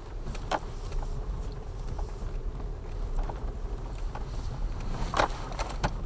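A car's engine and tyres rumbling steadily at low speed over a bumpy dirt track, heard from inside the cabin, with a few sharp knocks and rattles from the bodywork or suspension, one about half a second in and two near the end.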